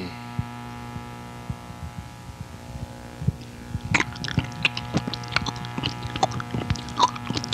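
Steady electrical hum with a few isolated clicks, then from about four seconds in a busy run of small clicks and crackles.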